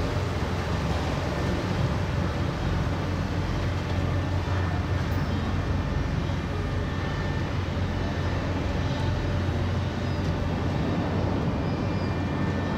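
Steady low engine drone with an even rush of noise over it, unchanging throughout.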